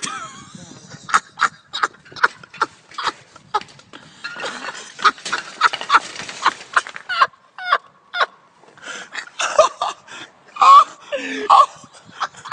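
Bicycles clattering and knocking: sharp metallic knocks and rattles of frames and wheels as a man falls and tangles among parked bikes, with a denser rattling stretch a few seconds in. A few short vocal exclamations come near the end.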